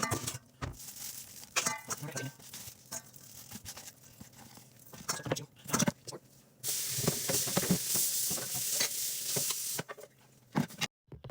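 Knife chopping cabbage on a cutting board in irregular knocks, then about three seconds of steady frying sizzle that starts and stops abruptly.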